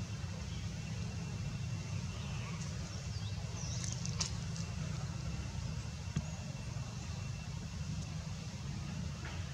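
Steady outdoor background rumble and hiss with no clear single source, and a brief faint high chirp about four seconds in.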